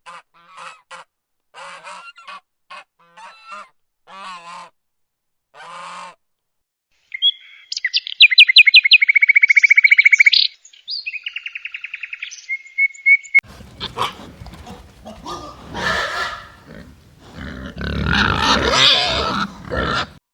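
A run of animal calls, bird-like honks and chirps. Short separate calls come first, then a loud rapid rattling trill from about seven seconds in, then a noisier stretch of overlapping calls near the end.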